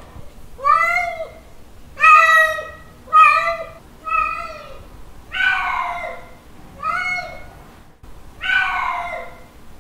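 Male cat's mating call: a series of about seven drawn-out meows, each rising and then falling in pitch, about a second apart, the later ones longer.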